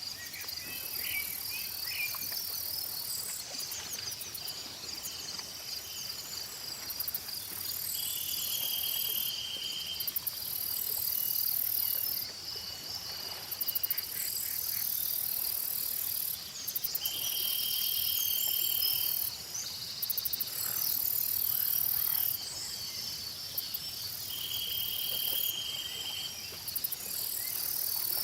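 Outdoor insect chorus: crickets chirring steadily, with a higher buzzing that switches on and off every few seconds, and a short buzzy trill about every eight seconds. Scattered bird chirps sound over it.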